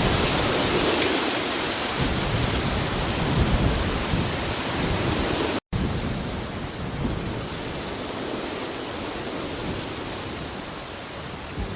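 Steady rain, with low rumbling like thunder in the first couple of seconds. It drops out for an instant about five and a half seconds in, then carries on a little quieter.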